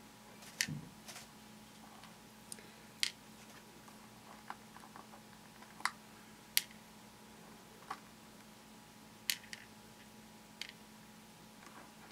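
Small plastic Pixos beads being picked up with the bead pen and set into a plastic template tray, giving light, separate clicks at an irregular pace, about a dozen of them.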